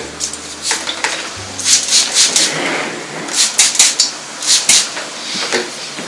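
Haircutting scissors snipping and a comb working through damp hair: an uneven run of short sharp clicks and brief hissy strokes, coming in two clusters.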